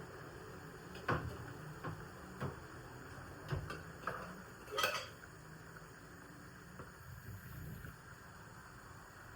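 Dishes and utensils clinking and knocking against each other, about half a dozen separate knocks with the loudest just before the middle, then the clatter stops.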